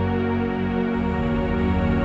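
Background music: soft new-age style with sustained keyboard tones and a chord change about a second in.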